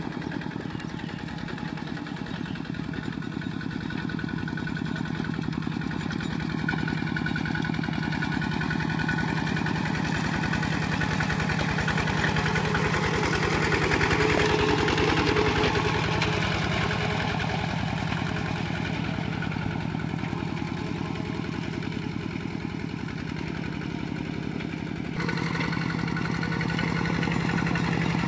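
Kubota RT120 single-cylinder diesel engine on a two-wheel walking tractor, chugging steadily under load as its cage wheels pull through paddy mud. It grows louder toward the middle, eases off, then steps up suddenly near the end.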